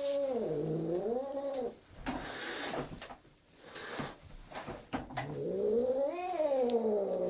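A cat yowling in long, low, wavering calls that rise and fall in pitch, with a short hiss about two seconds in. After a brief lull the yowling starts again, swelling up and down near the end.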